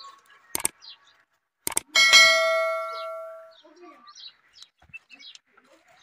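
Two sharp clicks, then a bright bell ding about two seconds in that rings out and fades over about a second and a half: the sound effect of an animated subscribe button being clicked. Faint bird chirps follow.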